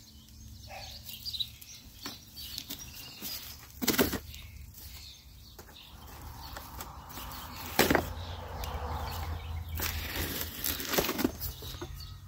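Cardboard box being cut and pulled open by hand: rustling and scraping of cardboard and packing tape, with a few sharp snaps, the loudest about four and eight seconds in.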